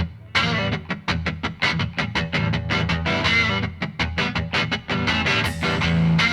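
Background music: a pop track led by quick, rhythmic plucked guitar notes over a bass line.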